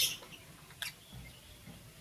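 Lovebird chirping: a high call breaks off at the start and one short chirp comes just under a second in, followed by faint soft knocks and shuffling.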